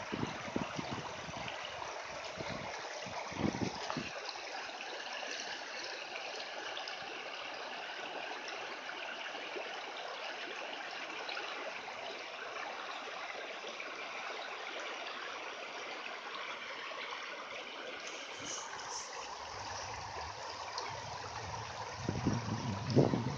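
Shallow, rocky creek running steadily over stones as a dog wades through it. A few louder low thumps and splashes come near the end.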